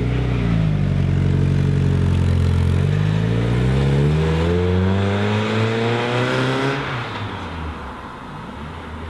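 1991 Mazda Miata's 1.6-litre inline-four running through a Borla cat-back exhaust as the car pulls away and accelerates. The exhaust note rises steadily in pitch for several seconds, drops off about seven seconds in, and fades as the car moves off.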